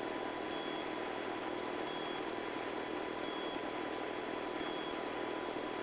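Steady engine and rotor noise inside the cabin of a Robinson R22 helicopter in flight, with a faint constant high tone over it.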